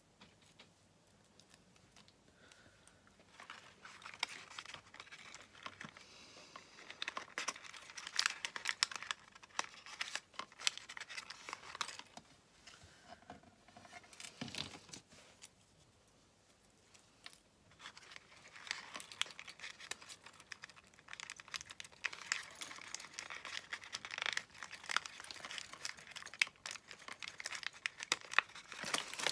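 Folded paper lantern crinkling and rustling in the hands as it is worked onto a fine wire light string. It comes in two spells of handling, starting a few seconds in, with a pause of a few seconds in the middle.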